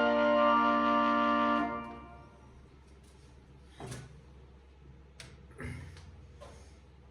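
Whelen Vortex and Thunderbolt 1003 tornado sirens sounding together in a steady chord of several tones, cutting off a little under two seconds in. Two faint knocks follow.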